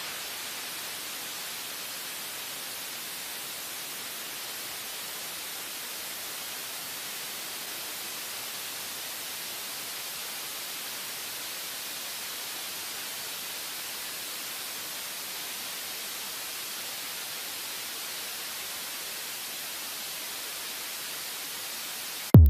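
Jet engine running steadily on a test stand, heard as an even, unchanging hiss of exhaust noise with little low rumble.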